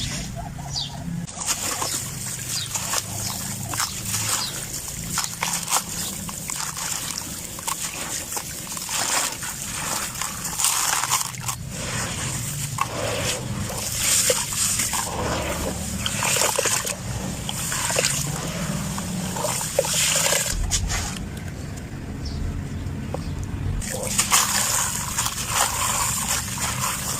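Gritty sand cement crumbling and crunching, with dense irregular crackles coming in uneven bursts.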